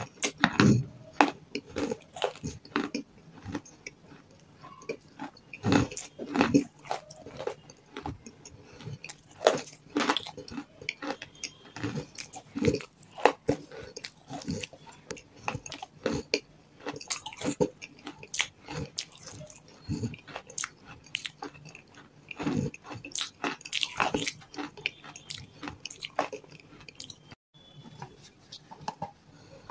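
Close-miked mouth sounds of someone eating a wet grey paste from the fingers: irregular sticky smacks, squelches and small crunches.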